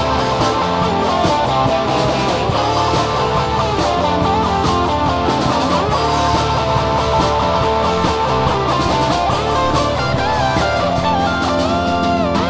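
Guitar-led rock music playing steadily.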